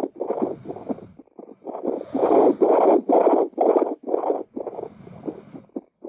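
Handheld fetal Doppler monitor picking up the user's own heartbeat, heard through its speaker as a regular train of whooshing pulses. The pulses weaken briefly about a second in, then come back louder.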